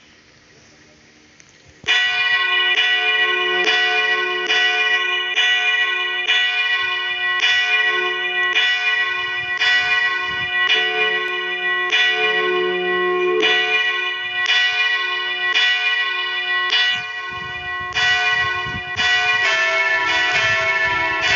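A pair of church bells ringing, starting suddenly about two seconds in and then striking in a steady, even succession of about one and a half strokes a second, the tones overlapping and ringing on. Near the end the mix of tones changes as a different combination of bells sounds.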